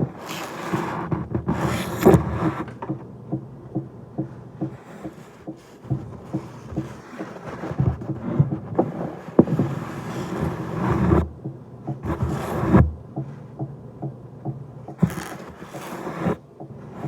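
A napkin wiping shattered glass from a fire alarm pull station: repeated brushing and scraping swishes, with many small clicks and knocks from the handled housing and glass bits.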